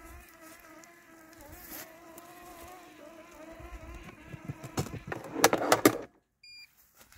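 Landxcape LX790 robotic lawn mower's brushless motors running with a steady buzzing whine as it drives into its charging dock. It ends in a run of loud clacks as it rides up onto the dock plate and contacts, then the motors cut off suddenly and a short high beep sounds.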